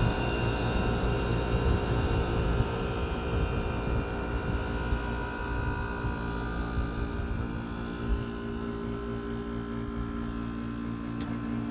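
Kenmore window air conditioner running with its Tecumseh reciprocating compressor just kicked on and the fan motor on low: a steady mechanical hum made of several fixed tones, the higher ones weakening partway through as the fan struggles, which the owner puts down to the compressor's inrush current on an undersized extension cord. A single sharp click sounds near the end.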